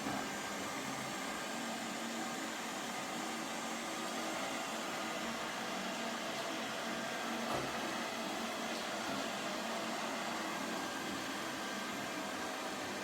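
Lefant M210 Pro robot vacuum cleaner running with a steady whir, with a light knock a little past halfway.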